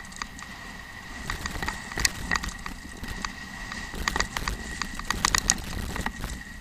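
Mountain bike rolling fast down a loose, rocky trail, its frame and wheels rattling with irregular clusters of sharp clicks and knocks as it hits stones, over a low rumble of tyres on gravel.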